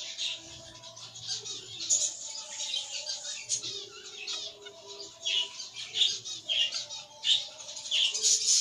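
Budgerigars chirping and chattering continuously, with quick high twitters and a few short falling squawks.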